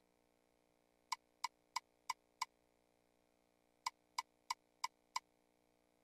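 Video slot machine's reel-stop sound: five short ticks about a third of a second apart as the five reels land one after another. After a pause of about a second and a half, five more ticks follow as the next spin's reels stop.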